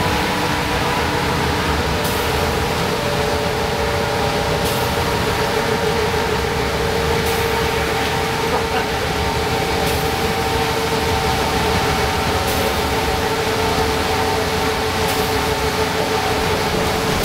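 A 1994 Nova Bus Classic's Detroit Diesel 6V92TA two-stroke V6 diesel and Allison VR731 transmission running steadily at highway cruise, heard from inside the bus, with a held whine over the drone and tyre hiss from the wet road. A short swish of the windshield wipers comes about every two and a half seconds.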